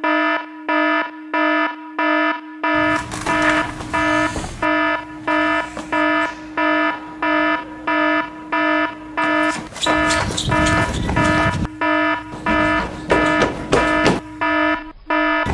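Electronic alarm beeping a harsh, buzzy tone about twice a second without a break: an intruder alert for a compromised computer terminal. From about three seconds in, other noise and scattered knocks run underneath it, busiest between about ten and twelve seconds.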